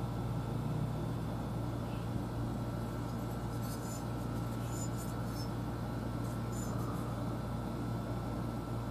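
Steady low background hum, with a few brief, faint high-pitched chirps in two short clusters near the middle.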